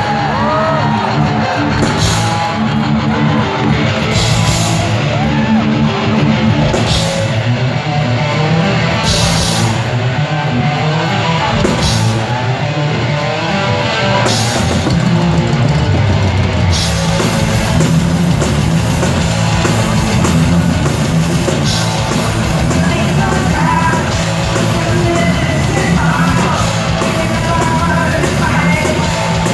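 Heavy metal band playing live, with distorted electric guitars, bass and a drum kit. The opening is stop-start, with accented full-band hits every couple of seconds, and the full riff runs on without a break from about halfway.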